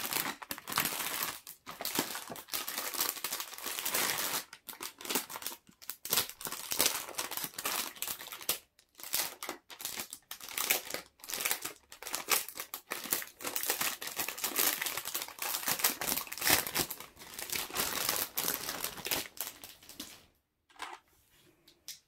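Packaging wrap crinkling and rustling as it is handled and pulled off a freshly unboxed keyboard, in uneven bursts with short pauses. It stops about two seconds before the end.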